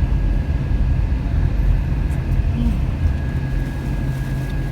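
Steady low drone of a moving vehicle's engine and road noise, with a thin steady high whine over it.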